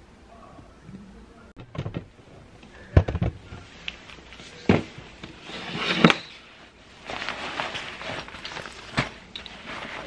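Cloth tote bags being pulled off a pile and handled: fabric rustling with several sharp knocks and clacks, the loudest and busiest stretch about six seconds in.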